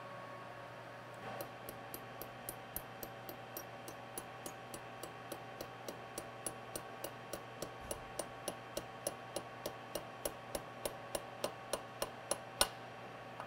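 Vertical milling machine running with a steady hum, over it a regular light ticking of about three ticks a second that starts about a second in, grows a little louder and stops with one sharper click near the end.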